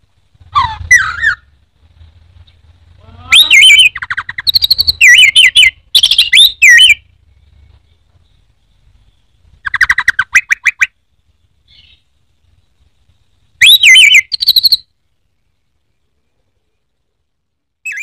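Caged orange-headed thrush (anis merah) singing loud, varied phrases of quick whistled glides and rapid trills. The song comes in four bursts with pauses between them, the longest a run of phrases from about three to seven seconds in.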